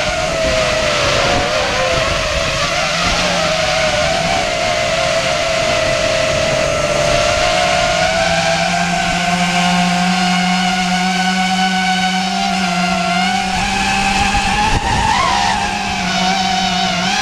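Brushless motors and propellers of a ZMR 250 FPV racing quadcopter whining in flight, the pitch wavering up and down as the throttle changes and rising sharply for a moment near the end.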